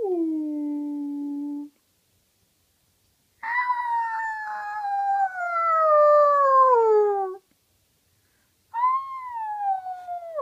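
Long, drawn-out howls. One trails off and holds low near the start. A second, the longest and loudest, lasts about four seconds and slides steadily down in pitch. A third rises and then falls near the end.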